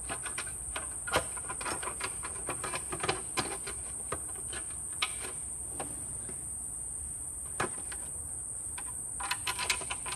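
Steady high-pitched drone of insects, with scattered sharp clicks and knocks of hand tools doing up two 10 mm bolts under the car. There is a small flurry of clicks near the end.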